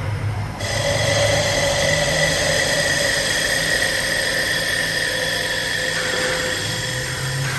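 CNC wood lathe running, its cutting spindle giving a steady high whine over a hiss of cutting noise as it works a wooden cup blank; the whine starts about half a second in and shifts in pitch about six seconds in.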